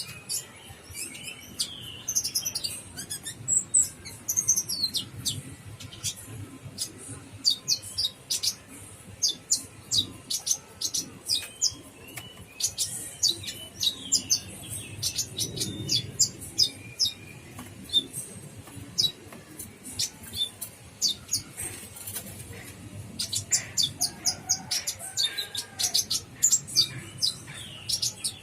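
Olive-backed sunbird (kolibri ninja) calling: quick runs of short, high, sharp chirps in bursts, with brief gaps between them.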